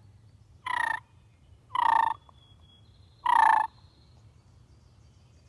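A bird calling: three loud calls of about half a second each, roughly a second to a second and a half apart.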